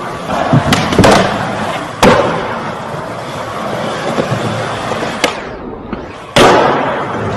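Skateboard wheels rolling on a smooth concrete skatepark floor, broken by sharp clacks of the board popping and landing, about one and two seconds in and again, loudest, near the end. The big hall makes the clacks echo.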